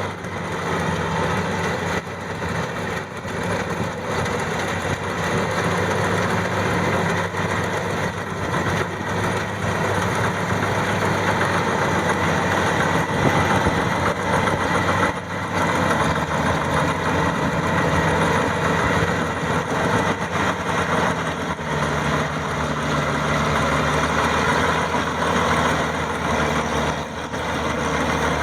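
Maxxi 85 combine harvester running steadily, its engine note holding over a dense mechanical noise, with a slight change in engine pitch about two-thirds of the way through.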